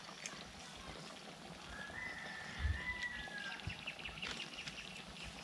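Fish frying in oil in a pan over a wood fire, a faint steady sizzling hiss with a few light clicks and a soft knock. A bird calls once about two seconds in, one drawn-out whistled note lasting well over a second.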